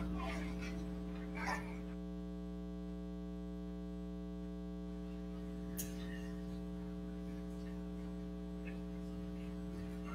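Steady electrical mains hum with a buzzy stack of overtones, and a faint click about six seconds in.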